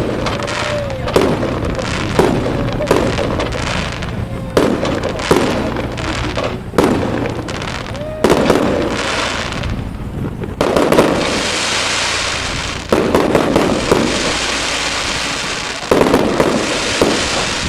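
Fireworks display: aerial shells bursting one after another, roughly one a second, each followed by a fading rumble. Between about eleven and sixteen seconds in, a long spell of dense crackling sounds as crackle shells go off.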